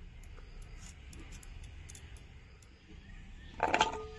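Faint ticking and scraping of a knife peeling a potato by hand, with a louder clatter about three and a half seconds in that rings briefly, like a metal utensil knocked.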